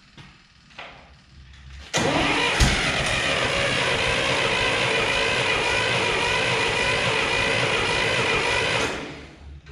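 Starter cranking an International Harvester 444 tractor's gasoline engine for about seven seconds: a steady whirring that starts suddenly, with a sharp pop just after it begins. The engine, with a freshly rebuilt carburetor, does not catch.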